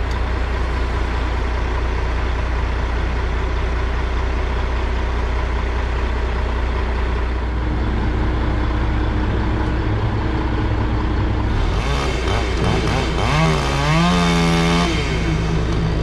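Crane truck's diesel engine running steadily. About twelve seconds in, a chainsaw revs and cuts through the spar top held by the crane, its pitch wavering and then holding high at full throttle.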